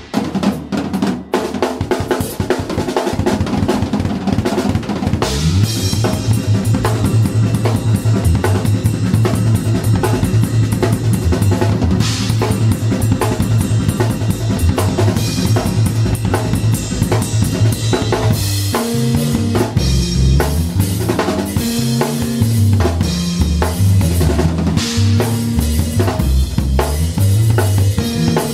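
Rock band playing without vocals: a drum kit beating steadily under an electric bass guitar. The bass holds one low note for a long stretch, then switches to a moving line of changing notes about two-thirds of the way through.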